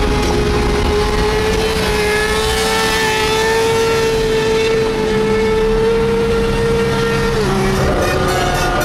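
A motorcycle engine held at high revs, its pitch creeping slowly upward, then dropping sharply near the end as the throttle comes off.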